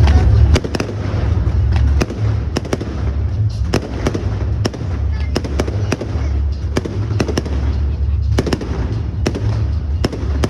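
Fireworks display: an irregular run of sharp bangs and crackling reports, about two a second, over a deep continuous rumble.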